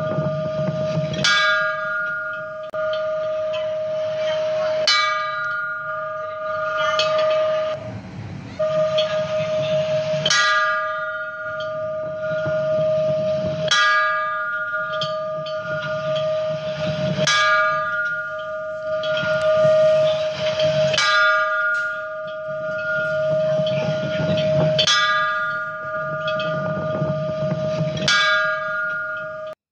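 A temple bell struck again and again, about every three and a half seconds. Each strike rings out and fades over a steady underlying hum.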